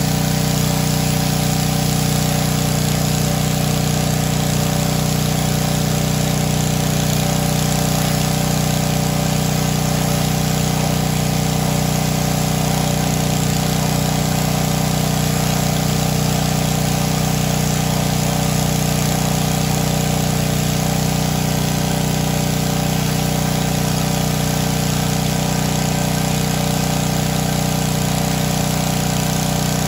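Pressure washer running steadily under load, its motor hum beneath the constant hiss of water jets from a wheeled undercarriage cleaner spraying up under a mower deck.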